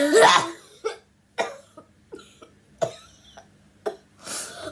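A boy coughing repeatedly. A loud, voiced cough comes first, then a string of shorter, sharper coughs, ending with a longer, breathier one.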